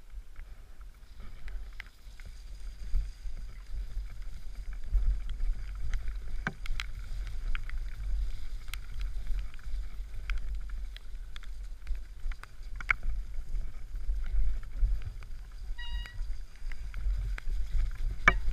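Mountain bike descending a rough dirt trail at speed: a steady low wind rumble on the helmet camera's microphone, with scattered rattles and knocks from the bike over bumps.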